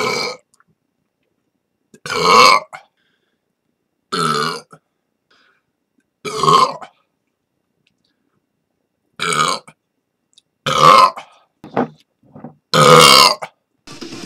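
A person burping: a run of about eight separate loud belches with silent gaps between them, some short and a couple drawn out, the longest and loudest about two-thirds of the way through.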